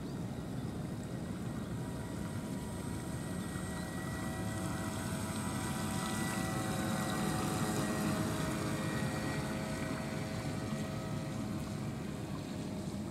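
Brushless electric motor of a 1 m RC model cruiser running with a steady, high whine, with water churning at the hull and stern. It swells as the boat passes close, loudest about seven to eight seconds in, then fades as it moves away.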